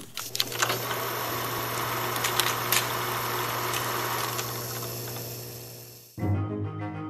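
Cine film projector running: a steady mechanical whirr and low hum with scattered clicks and crackle. It fades away over about a second, and music starts near the end.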